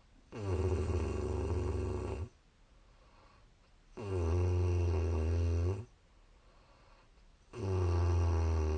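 A woman snoring in her sleep: three long, low snores, one roughly every three and a half seconds, each lasting about two seconds. The third is still going at the end.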